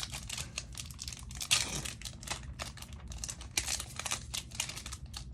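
Pokémon TCG booster pack's foil wrapper being torn open and crinkled by hand: dense, irregular crackling, with one sharper rip about one and a half seconds in.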